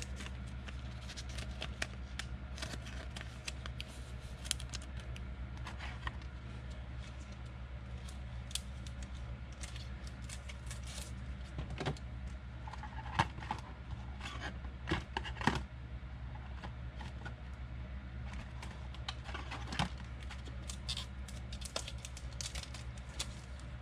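Handling noises of trading cards and plastic card holders: scattered light clicks, scrapes and rustles, busiest in a few short flurries, over a steady low hum.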